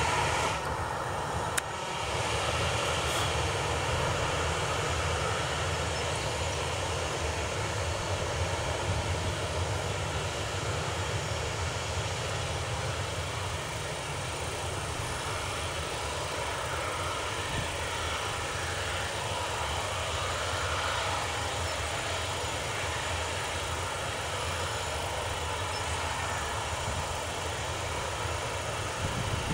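Jet engines of an ANA Boeing 737 running at low taxi power as the airliner moves and turns on the runway. The engine noise is steady, with no build-up to takeoff thrust.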